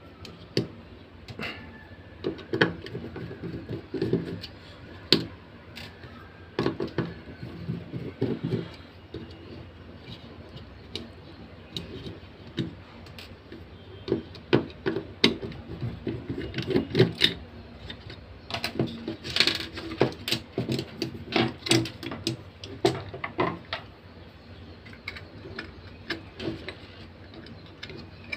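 Irregular small clicks, taps and knocks of plastic and metal parts being handled as an AC hair trimmer is taken apart by hand, with a cluster of louder knocks about two thirds of the way in.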